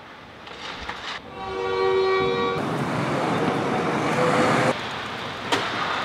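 An arena horn blows once for about a second and a half, starting about a second in. A steady wash of noise follows and breaks off abruptly near the end, and a single sharp click comes just after.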